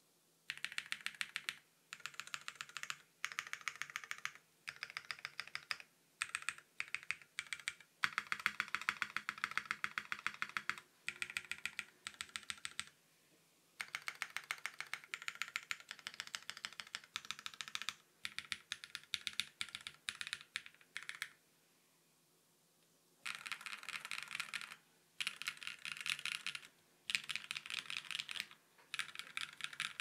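Typing on a gasket-mounted 65% mechanical keyboard with lubed and filmed Durock POM Piano Black linear switches, PBT keycaps and an FR4 plate. Fast runs of keystrokes come in bursts, with a break of about two seconds two-thirds of the way in.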